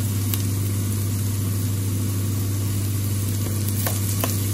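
Ground spice paste of shallot, garlic and galangal sizzling as it fries in oil in an enamelled pot, cooked until fragrant. A steady low hum runs underneath, and two light ticks come near the end.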